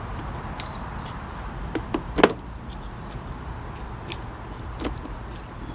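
A few scattered metal clicks and taps as a screwdriver pries open a car battery cable terminal clamp, the sharpest about two seconds in, over a steady low background hiss.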